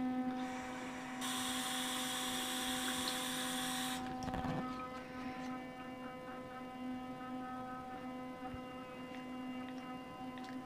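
Electric sonic toothbrush buzzing steadily while brushing teeth, an even low hum with overtones. A loud hiss cuts in about a second in and stops suddenly near four seconds.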